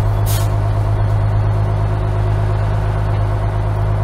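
Engine of a 1982 American LaFrance fire engine running steadily, heard from inside its open cab as a deep, even drone. A brief hiss comes just after the start.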